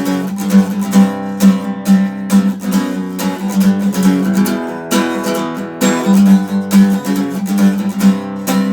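Acoustic guitar strummed in a steady rhythm, a quick regular pattern of chord strokes, with no singing.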